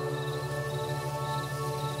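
Ambient relaxation music of held, steady synth tones over a low, rapidly pulsing tone, with night insects, crickets, chirping in short repeated trills.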